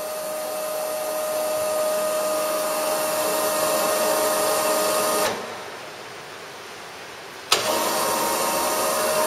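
Union BFT125/5 horizontal boring machine's rotary table drive running at a fine feed in reverse: a steady hum with a high whine. About five seconds in the whine falls away to a quieter hum, then cuts back in abruptly with a click about two seconds later.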